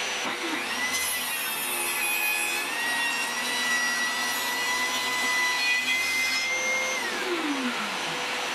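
Homemade table saw, driven by a 1400 W Status SP190PL circular saw mounted under the table, running steadily with a high whine while a board is slowly crosscut at full depth. About seven seconds in the motor is switched off and winds down, its pitch falling.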